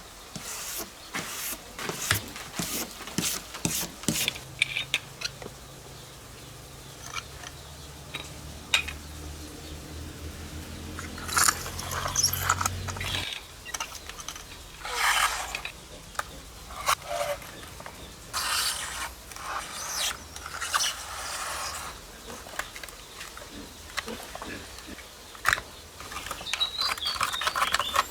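Close-up handling and cleaning of a mud-covered diecast model car. Quick taps and clicks come first, then repeated scraping and rubbing strokes. A low steady hum starts about four seconds in and cuts off about thirteen seconds in.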